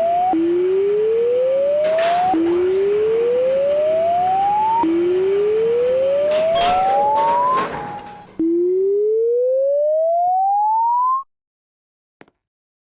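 An electronic siren-like tone that rises in pitch over about two to three seconds and then drops back to start again, five rising whoops in all, with a few knocks between them. It cuts off suddenly near the end.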